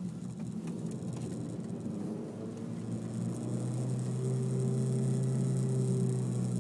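Engine and tyre noise inside the cabin of a Honda Civic 1.8 i-VTEC under way. About three seconds in, a steady low engine hum comes up and grows a little louder.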